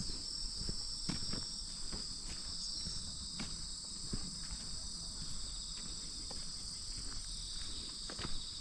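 Steady high-pitched chorus of insects in two continuous bands of shrill trilling, with scattered footsteps underneath.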